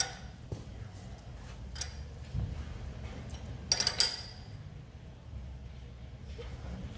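Light metal clinks of a wrench and steel suspension parts being handled: a couple of single taps early, then a short cluster of ringing clinks just before four seconds in, over a steady low shop hum.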